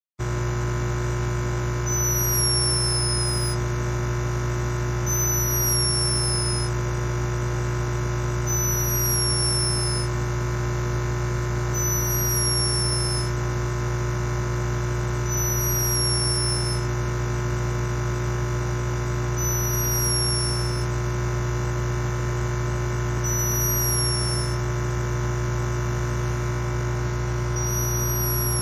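Hummingbird snoring: a thin, high whistle that slides slightly downward and lasts about a second and a half, repeated eight times at intervals of three to four seconds, over a steady low electrical hum.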